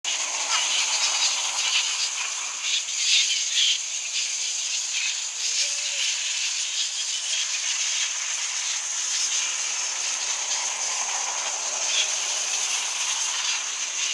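The din of a huge flying fox colony in flyout: a dense, continuous mass of high-pitched squeaks and chatter over a steady high hiss.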